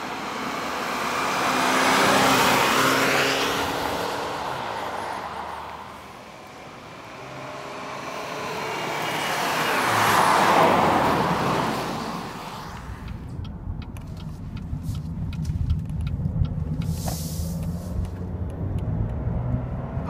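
A 2014 Cadillac ATS with a turbocharged 2.0-litre four-cylinder driving past twice, its engine and tyre noise swelling and fading away, loudest about two and ten seconds in. From about thirteen seconds in, a steady lower engine and road hum heard from inside the cabin.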